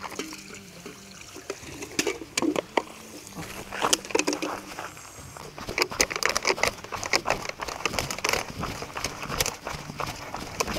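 Scattered small clicks and crinkling, then quick running footsteps on dry, stony ground.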